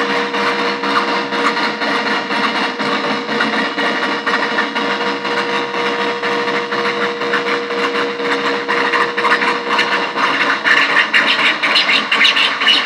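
Harsh electronic noise from an Arturia MicroBrute analog synthesizer cross-patched with a Nova Drone, played through a bass practice amp: a dense, fast-flickering buzz over a steady tone. The tone fades out about ten seconds in as brighter, higher noise grows near the end.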